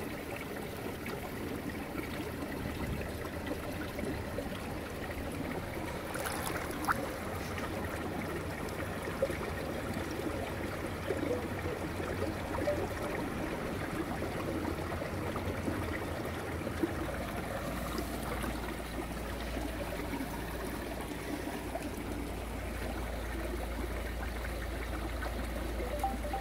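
A small stream flowing steadily, with one light click about seven seconds in.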